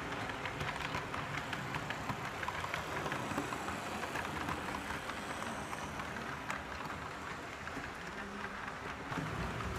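Model freight train and diesel locomotive rolling past on a home layout: a rapid, uneven clicking of small wheels on the rails over a low rumble.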